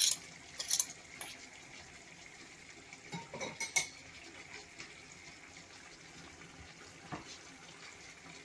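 Metal spoon clinking and scraping against a non-stick pot while stirring basmati rice frying in oil and ghee: a few sharp clinks in the first second and a couple more about three and a half seconds in.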